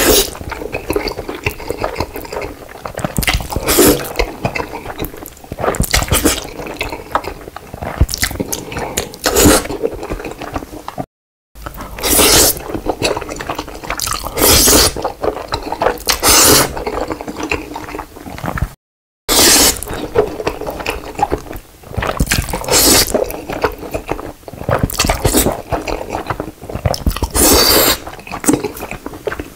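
Close-miked mouth sounds of eating black bean noodles (jjajangmyeon): repeated loud, wet slurps of noodles with chewing in between, broken twice by a moment of silence.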